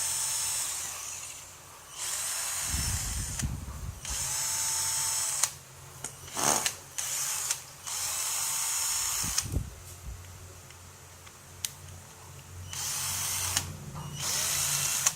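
A 12V cordless drill runs in about six bursts, each from under a second to a few seconds long, with short pauses and a few clicks between them. Each burst has a steady motor whine that rises briefly as it spins up.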